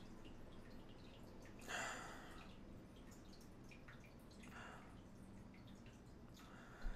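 A person sniffing a mug of freshly poured light lager three times, the strongest about two seconds in, over a faint crackle of the beer's foam fizzing. A soft bump near the end.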